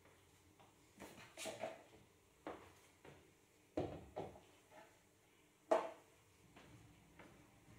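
Flat mop being lifted out of its squeeze bucket and pushed across the floor: a series of short swishes and plastic knocks with quiet in between, the loudest about three-quarters of the way through.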